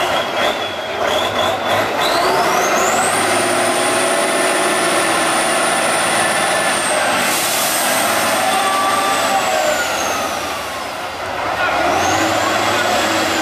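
Tatra 813 8x8 trial truck's engine working hard under load, with a high whine that climbs about two seconds in, holds, then falls away, and climbs and falls again near the end. A short burst of air hiss about seven seconds in.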